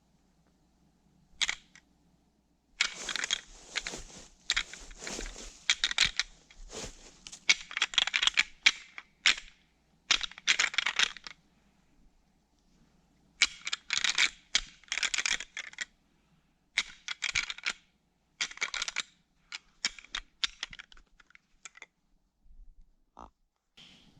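Footsteps of a person walking up a slope through the woods, each step a crunch on the frozen forest floor, in uneven runs with a short pause near the middle.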